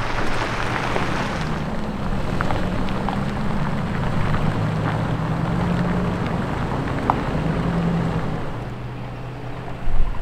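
An off-road SUV's engine running at low revs, its pitch drifting up and down, under a steady rushing noise with scattered small ticks from tyres on rough ground. There is a loud thump near the end.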